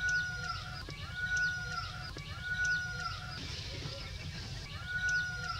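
A bird repeating a clear, steady whistled note four times, each about three-quarters of a second long and dipping at its end, with quick higher falling chirps from birds alongside and a low rumble underneath.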